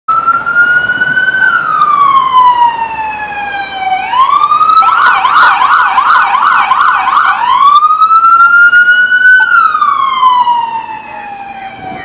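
Police cruiser's electronic siren on a wail, rising and falling slowly. About five seconds in it switches to a rapid yelp of roughly three sweeps a second, then goes back to the wail after about two and a half seconds.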